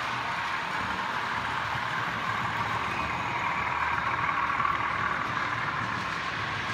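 OO gauge model trains running on the layout: a steady whirr of small electric motors and metal wheels on rail, swelling a little about four seconds in as a train of coaches passes close by.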